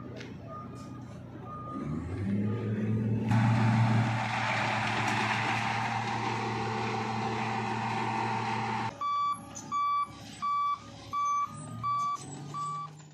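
Road milling machine at work: its diesel engine hums while a loud, steady rushing noise rises over it for several seconds, then stops abruptly. A reversing alarm follows, beeping six times at an even pace, about one and a half beeps a second; fainter beeps of the same alarm come at the start.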